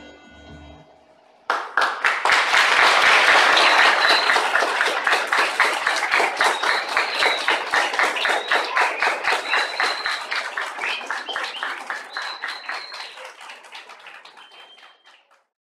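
Audience clapping and applauding, starting suddenly about a second and a half in, loud at first, then thinning into scattered claps and dying away near the end. The last of the music fades out just before the clapping starts.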